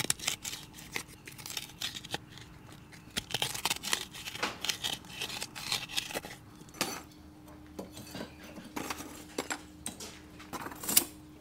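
Metal spoon scraping and tapping against a small bowl and the rim of an aluminium cooking pot as chopped aromatics are scraped into it: a scatter of short clicks and scrapes, with a few sharper clinks near the end. A faint steady hum runs underneath.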